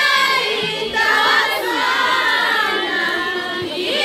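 Women's choir singing a déba, the Mahorais devotional chant, with many voices together in long held notes. There is a brief pause about a second in before the voices come back.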